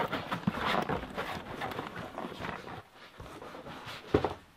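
Cardboard boxes being handled: a white cardboard box of fireworks is shifted and slid against the shipping carton, rustling and scraping. A single sharp knock about four seconds in, as a box is set down.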